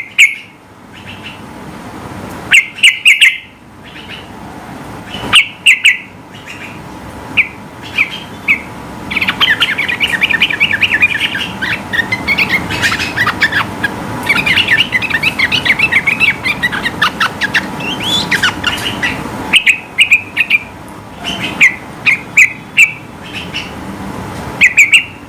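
Yellow-vented bulbul (trucukan) singing: loud, short calls come in clusters, then about nine seconds in a rapid chattering run lasts about ten seconds before the short loud calls return. A faint steady tone runs underneath.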